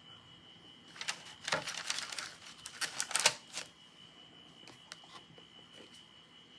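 Cardboard and paper packaging of an iPad Air box being opened and handled: a busy run of clicks and crackles from about a second in to nearly four seconds, then a few single clicks.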